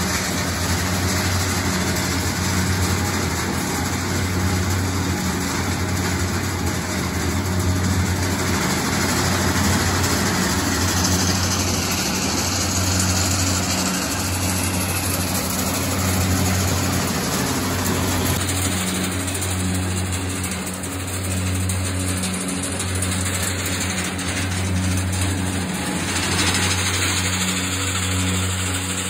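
A large acorn huller, the shelling machine, running loud and steady as acorns are passed through it. Its low hum swells and fades every couple of seconds. The caption calls it really loud.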